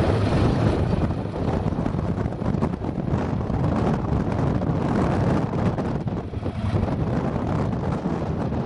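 Wind rumbling on the microphone together with the steady running of a Pro-Drive surface-drive mud motor pushing a small boat across shallow water and mud.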